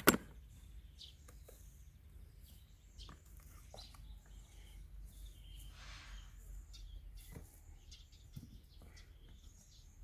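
A sharp plastic knock right at the start as the lawn mower's grass catcher is handled, then faint rustling of grass clippings being pulled out, with small birds chirping now and then over a low steady rumble.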